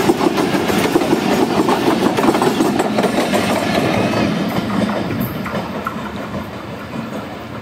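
Pakistan Railways passenger coaches rolling past at close range, their wheels running on the rails. The sound fades from about five seconds in as the last coach passes and the train draws away.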